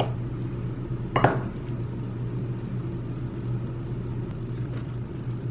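A metal fork clinks sharply against a bowl once, about a second in, with faint light taps of the fork otherwise, over a steady low hum.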